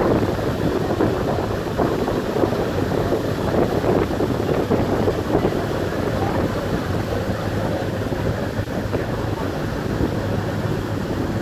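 Wind buffeting the microphone on an open ferry deck, over the steady low hum of the ship's engine and the wash of water along the hull.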